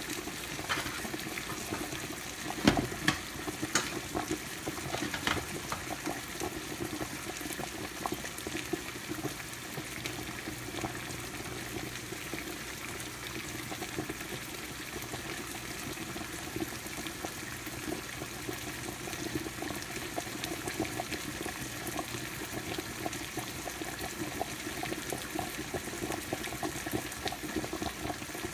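Creamy sauce simmering in a frying pan on the stove: a steady bubbling and crackling, with a few sharp knocks about three to four seconds in.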